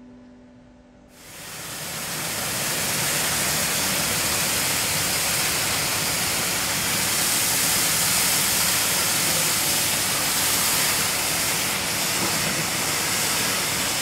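Water jetting from a hose onto muddy pavement: a loud, steady hiss and splash that starts about a second in, as the last notes of slow piano and string music die away.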